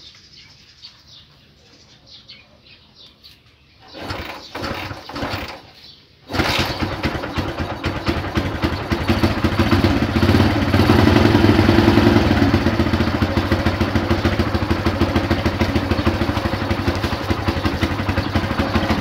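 Kawasaki Barako motorcycle's single-cylinder four-stroke engine kick-started: a few kicks about four seconds in, then the engine catches about six seconds in, revs up and settles into a steady run.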